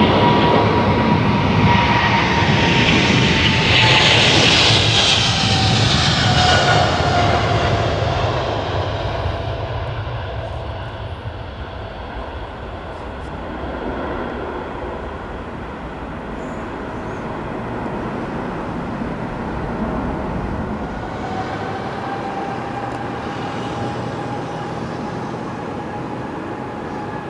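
Boeing 777 Freighter's twin GE90 jet engines at takeoff thrust as it rolls past and lifts off: loud at first, with a whining tone that falls in pitch, then fading as it climbs away. Near the end, a quieter, steadier jet engine sound with a faint whine, from a four-engine Boeing 747 on the runway.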